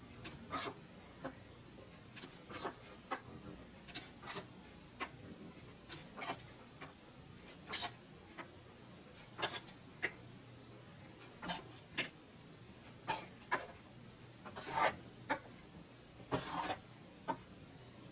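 USB thumb drives being stood on end one by one on a tabletop: irregular light clicks and taps, one or two a second, as each drive is set down and lined up.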